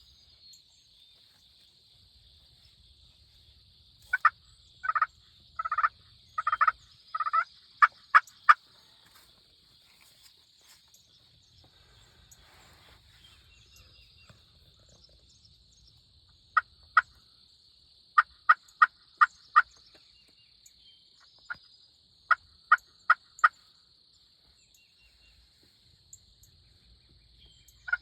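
Turkey yelps in short runs: a string of about eight notes, some drawn out, in the first third, then groups of two to four sharp notes later on. A steady high hiss sits underneath.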